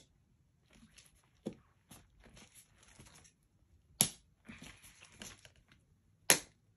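Plastic lid and tear-off seal of a Perler bead tub being worked open: faint plastic rustling and scraping, with two sharp clicks about four and six seconds in as the lid clicks.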